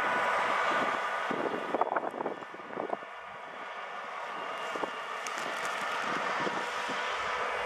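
Diesel locomotive engine of Illinois Central #9571 running steadily as the locomotive moves slowly along the track, with wind gusting on the microphone about two seconds in.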